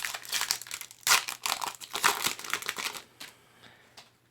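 Foil booster-pack wrapper crinkling as it is handled and torn open, in quick crackling bursts for about three seconds before it fades.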